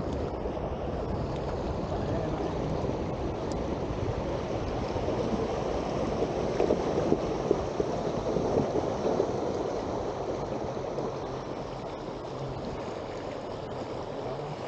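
Steady rush of river water flowing over stones.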